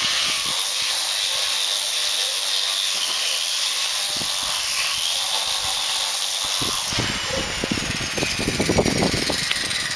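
Handheld electric power tool sanding paint off a concrete pool wall: a steady hiss of abrasion under a motor whine whose pitch wavers as the tool is pressed and moved. From about seven seconds, low irregular knocks and rumble join in.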